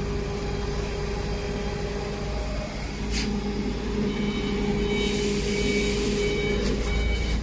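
A 2000 W laser cleaning machine stands powered up and running, its water chiller and cooling fans giving a steady hum with a low rumble and one strong steady tone. From about four seconds in, faint high whines join, and there is a brief hiss a second later.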